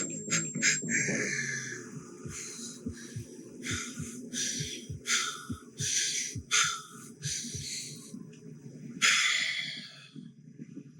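Foley of a runner's heavy, rhythmic breathing, a breath about every second, over soft regular footfalls of running shoes on concrete, with low-pass filtered music underneath.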